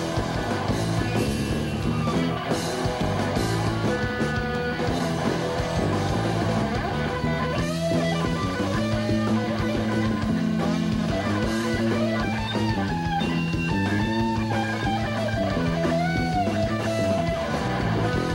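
Live rock band playing an instrumental passage: a sunburst Epiphone semi-hollow electric guitar plays sustained lead lines with bent and sliding notes over bass and a drum kit.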